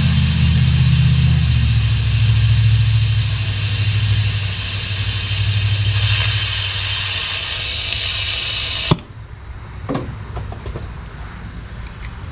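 Compressed-air venturi vacuum coolant refill tool hissing steadily on the coolant reservoir as it pulls vacuum on the cooling system, over a low hum that fades. The air is shut off with a sharp click about nine seconds in, followed by a few light clicks from handling the tool.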